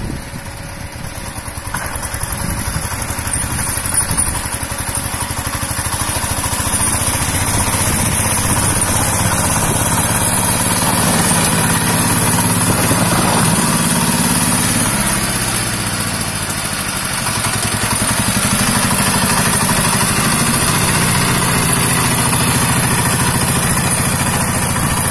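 Single-cylinder diesel engine of a Rusich T-12 mini tractor running while the tractor pushes snow with its front blade. It grows louder over the first several seconds as the tractor approaches. About fifteen seconds in the engine speed dips briefly, then picks up again.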